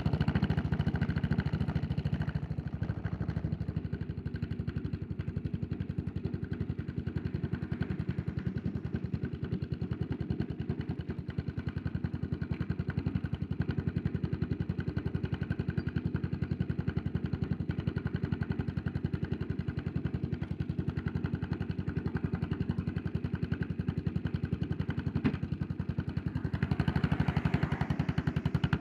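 Yamaha SR400's air-cooled single-cylinder four-stroke engine running on the road, a quick even beat of exhaust pulses. It is louder for the first couple of seconds, settles to a quieter steady run, and grows louder again near the end.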